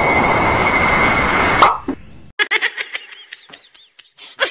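A loud, steady hiss with high whining tones, cut off by a sudden knock a little under two seconds in as the wall-mounted plastic litter box tips over. Then a string of short plucked, bouncing notes, a comic sound effect.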